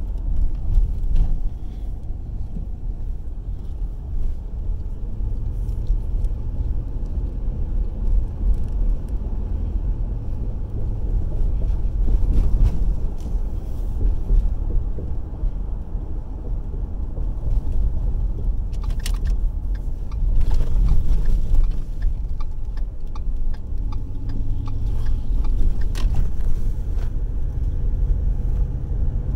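Steady low rumble of a car's engine and tyres heard from inside the cabin while driving through city streets, with a few light clicks and rattles about two-thirds of the way in and again near the end.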